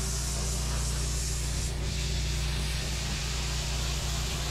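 Pressure washer lance blasting block paving with a high-pressure water jet: a steady hiss of spray over a steady low hum.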